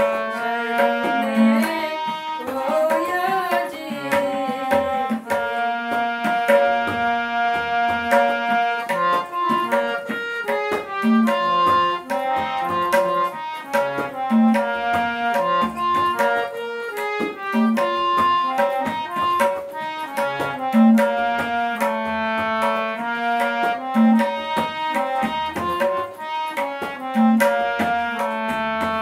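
Tabla and harmonium playing a devotional bhajan melody together: the harmonium's reedy held notes carry the tune while the tabla keeps a steady rhythm of ringing tuned strokes.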